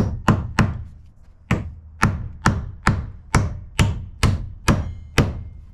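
Hammer driving nails into plywood flooring: three quick taps, a pause of nearly a second, then steady blows about two a second.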